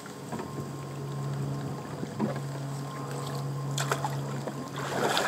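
Kayak on moving water: a few sharp knocks against the hull over a steady low hum, with the rush of water growing louder near the end.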